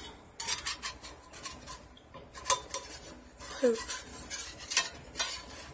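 Metal cutlery clinking and clattering against a skillet and stovetop: a string of short, irregular clanks and scrapes, the loudest about two and a half seconds in and near the end.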